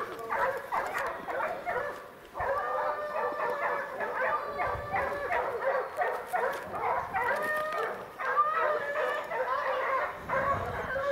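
A pack of bear hounds baying and bawling on a bear, several dogs' voices overlapping almost without a break.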